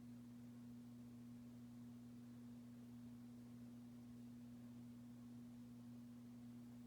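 Hunter Coastal Breeze Plus ceiling fan motor running on medium speed, a faint steady hum. The fan turns slower than it should, which the owner guesses is down to its oversized 52-inch blades rather than a failing capacitor.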